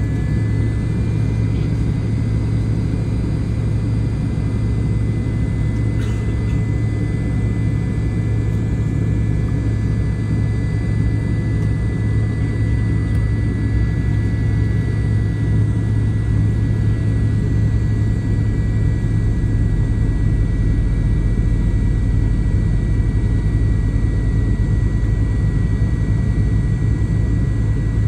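Cabin noise inside a McDonnell Douglas MD-88 rolling slowly on the ramp: a steady low rumble with a steady high-pitched whine over it.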